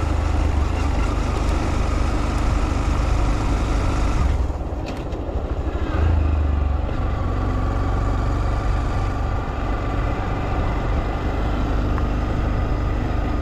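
Honda Monkey's single-cylinder engine running as the bike rides along, with wind rushing over the microphone. About four seconds in, the wind noise eases for a couple of seconds, and the engine swells briefly around the six-second mark.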